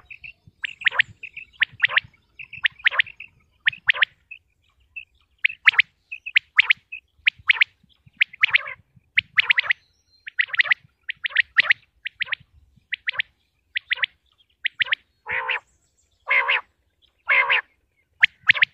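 Common quail calling over and over: short sharp notes, many in quick groups of two or three. A few lower, rougher calls come near the end. This is a hunting lure recording of quail calls.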